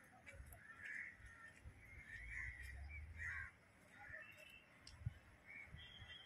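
Crows cawing, faint short calls repeated over and over, with a low rumble swelling and fading in the middle.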